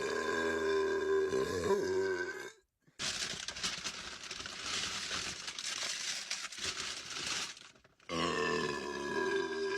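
Long, drawn-out burps: a held, pitched belch of about three seconds at the start and another starting about eight seconds in, with a rough hissing noise of about five seconds between them.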